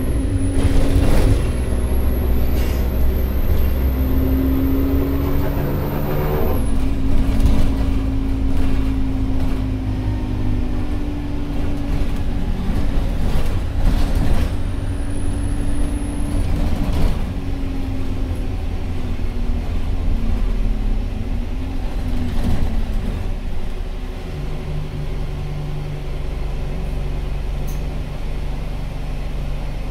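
Interior of a Metroline single-deck bus on the move: engine and drivetrain drone with tones that shift as it changes speed, plus road noise and occasional knocks and rattles from the body. A faint high whine runs through the first few seconds, and the engine note settles lower and steadier near the end.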